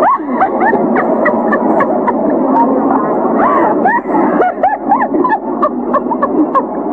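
Loud, dense babble of many voices at once, with a woman's high-pitched excited talking and laughter over it.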